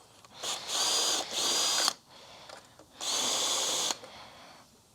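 Power drill-driver running in three short bursts, the motor spinning up to a steady whine each time, as it backs out screws from a Kirby G3 vacuum's housing.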